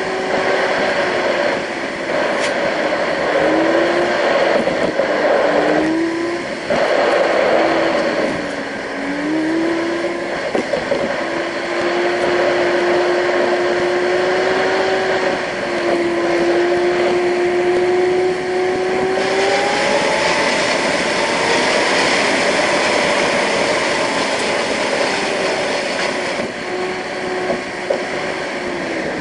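Car engine and road noise heard from inside the cabin. The engine note rises and falls as the throttle and speed change, over a steady hiss of tyres on asphalt that grows louder and brighter for several seconds past the middle.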